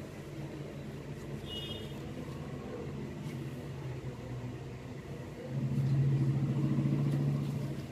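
A low, steady motor hum that grows clearly louder for about two seconds near the end, with a brief high beep about a second and a half in.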